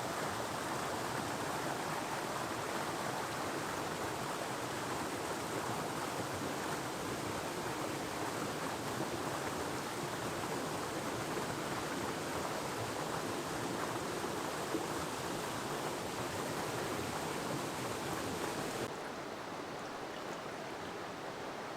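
Steady rush of flowing water from a creek. Near the end the sound becomes a little quieter and duller.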